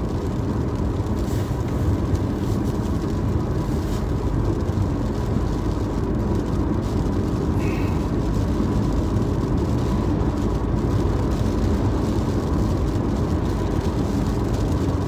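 Steady in-cabin road and engine noise of a car driving at speed on a wet road, with the windscreen wipers sweeping now and then.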